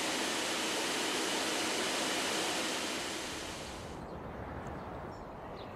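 Steady rushing hiss of a high-volume water jet from a Pierce Enforcer fire truck's pump pouring into a recirculation tank, the pump running at full power on test. The rush fades out about four seconds in, leaving a quieter low rumble.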